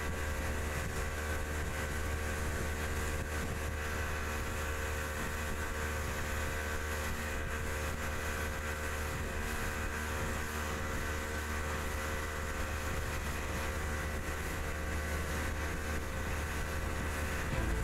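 Speedboat engine running steadily under way, heard from aboard, a constant drone with a rush of wind and water.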